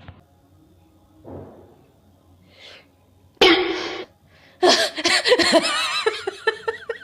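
A woman sneezes once, a sudden hissing burst about three and a half seconds in, then breaks into laughter that comes in short bursts.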